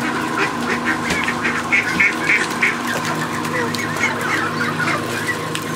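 A flock of young mallard ducks and Canada geese calling: a busy run of short, quick calls, thickest about a second to three seconds in, over a steady hum.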